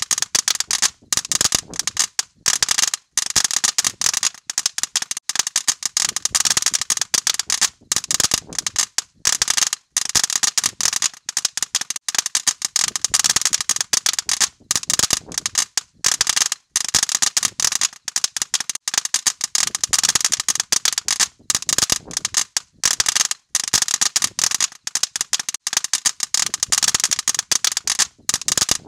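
Crackling fireworks: a dense stream of rapid small pops and crackles, broken by short gaps.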